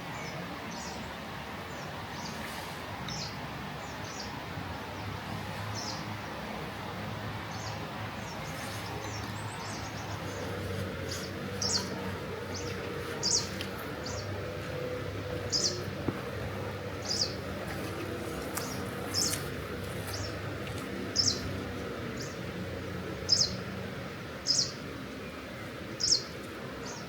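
A songbird calling with short, sharp high chirps, faint at first and then loud and repeated about every one to two seconds from roughly the middle on, over a steady background hiss.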